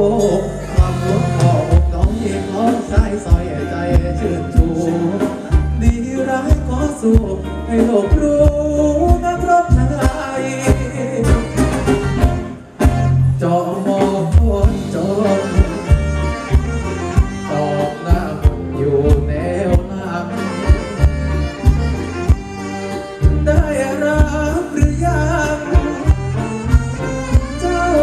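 Live Thai ramwong band music played loud through a PA: a male singer sings over a steady drum beat, bass and electric guitar, with a brief break in the sound about halfway through.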